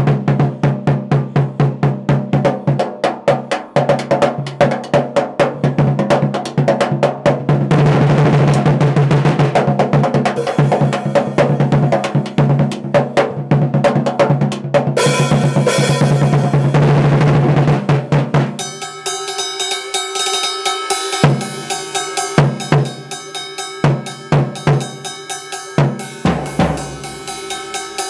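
Acoustic drum kit solo, played hard and fast: rapid strokes on the drums and bass drum build into a dense roll, with a cymbal wash a little past the middle. In the last third the playing turns sparser, with separate snare, drum and cymbal hits.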